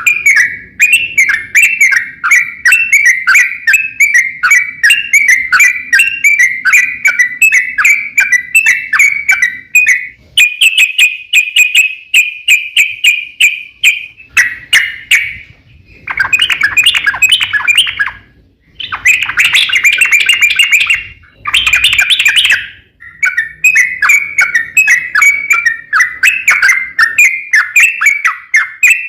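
Yellow-vented bulbul (trucukan) singing a long, rapid run of bubbly chirping notes, several a second, broken by two short pauses past the middle.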